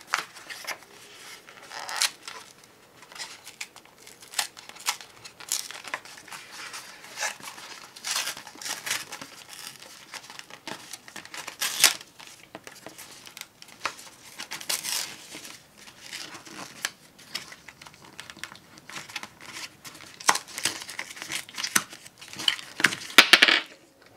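Paperboard battery box being torn open and handled: tearing and crinkling of the paper packaging with irregular rustles and crackles, loudest near the end.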